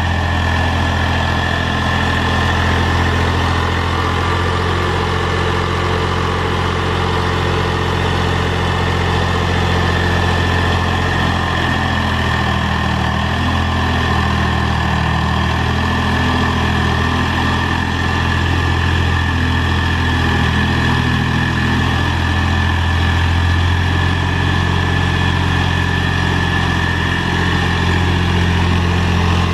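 Mahindra tractor's diesel engine running steadily while the tractor works a box blade through dirt. A steady high whine rides over the engine note, which wavers a little midway.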